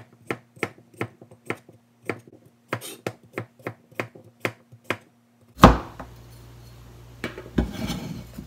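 Kitchen knife chopping cucumber into chunks on a plastic cutting board, in even strokes about three a second, each a sharp tap of the blade on the board. The chopping stops after about five seconds. A single loud knock follows, then the rustle and light knocks of the cut pieces being gathered by hand on the board.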